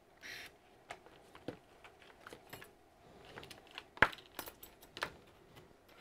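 Scattered small clicks and taps as tools are put down and picked up and a laptop is handled on a silicone repair mat, with a brief rustle at the start and the sharpest click about four seconds in.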